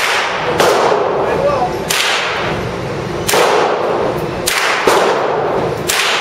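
AR-15 rifle fired in single shots: six reports, spaced unevenly about one to one and a half seconds apart, each trailed by a short echo off the walls of an indoor range.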